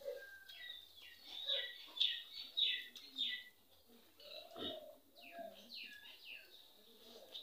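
Birds chirping, a rapid series of short calls that each fall in pitch, repeated many times. A soft knock about four and a half seconds in.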